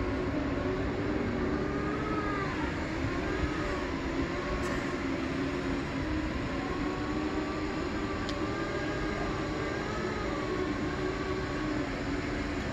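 Segway personal transporters' electric drive motors whining as they roll slowly, the pitch of the whine drifting up and down with speed, over a steady rumbling noise.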